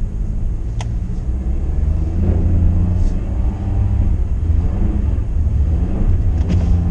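Car engine revving with its tires spinning in snow to throw the packed snow out of the treads; the rumble gets louder about two seconds in.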